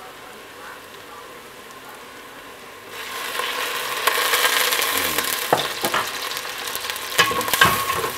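Onion, garlic and small dried shrimp sautéing in oil in a stainless steel pot: a faint sizzle that gets clearly louder about three seconds in, then a spatula stirring and knocking against the pot over the last few seconds.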